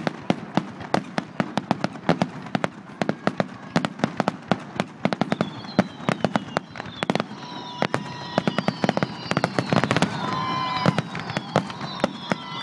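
Fireworks display going off in a rapid, dense run of bangs and crackles, several a second. High whistling tones join in about halfway through.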